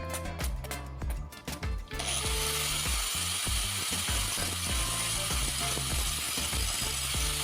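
Background music with a steady beat; about two seconds in, a continuous grinding hiss starts and holds, a knife blade being sharpened.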